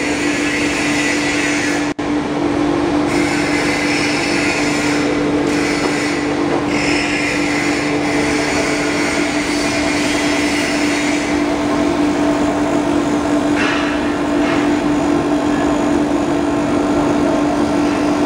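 Foam-splitting machine running steadily: a strong, even hum with a hiss that swells and fades above it. The sound drops out for an instant about two seconds in.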